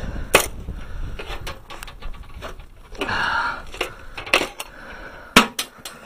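Metal hand tools being handled at a steel toolbox: a few sharp clanks and knocks, a cluster of them near the end, with rustling between.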